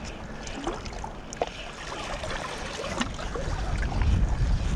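Sea water lapping and trickling among shore rocks, with a low wind rumble on the microphone building in the second half.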